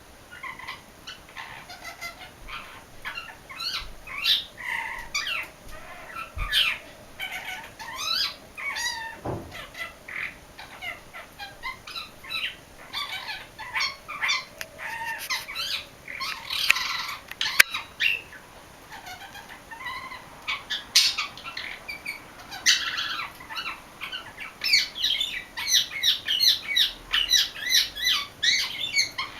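English budgie singing: a long run of fast, varied warbling chirps, clicks and squawky notes, mixing in calls copied from an Indian ringneck parakeet. The chatter grows denser near the end.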